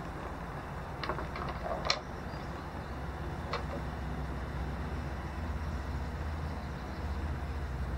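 Steady low outdoor background rumble, with a few light clicks and taps about one, two and three and a half seconds in.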